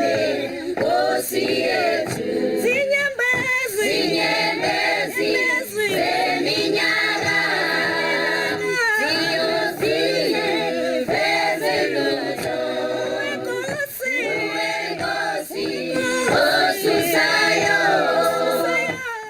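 A choir singing a cappella, several voices in harmony in sung phrases, cutting off abruptly near the end.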